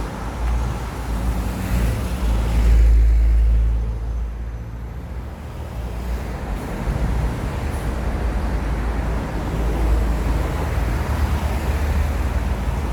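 Road traffic with buses going past, a steady deep rumble that swells loudest around three seconds in.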